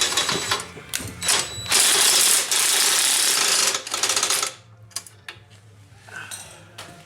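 A power tool running in several loud bursts, stopping about four and a half seconds in, followed by a few light clicks and knocks.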